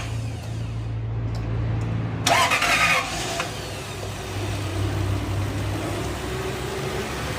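Lexus 430's 4.3-litre V8 running at idle just after starting on a used replacement starter motor, with a short louder burst about two seconds in.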